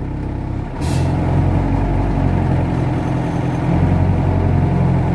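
Mercedes-Benz 608 diesel engine running, heard from inside the cab; about a second in there is a short hiss and the engine gets louder and stays that way.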